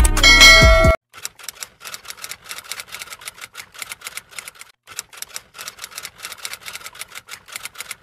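Background music for about the first second, cut off abruptly, then a run of quick light clicks, several a second and unevenly spaced, with a short break about five seconds in.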